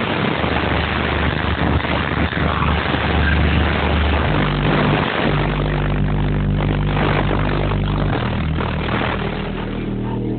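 Two 12-inch DC Audio Level 3 subwoofers in a ported box tuned to 32 Hz, playing bass-heavy music loudly. Long deep bass notes change pitch about four seconds and again about eight seconds in, under a harsh noisy layer.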